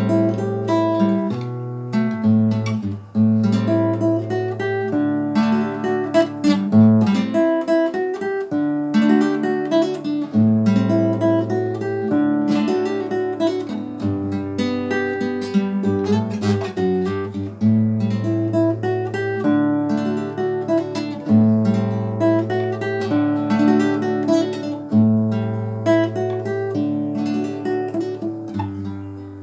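Solo acoustic guitar playing a melody, picked and partly strummed, over bass notes that change every second or two.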